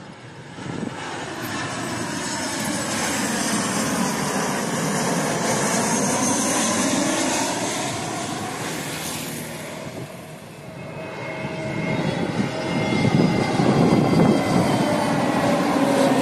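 Twin-engine jet airliners passing low overhead on final approach, their turbofan engines rumbling and whining. The first swells and fades with a sweeping pitch as it goes over. A second jet then comes in and grows louder near the end.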